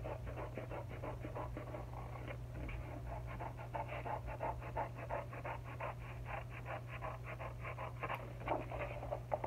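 Scissors cutting through poster board in a quick, steady run of short snips, several a second, over a steady low hum.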